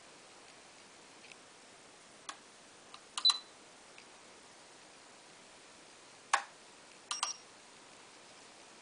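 A few sharp clicks over faint steady hiss. The loudest are a double click about three seconds in, a single click past six seconds and another double click just after seven.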